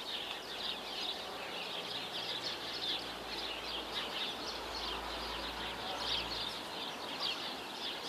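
Many small birds chirping at once, a dense chatter of short, high chirps with no let-up.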